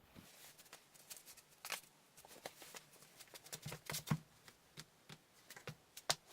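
Faint, irregular light clicks and taps, a few a second.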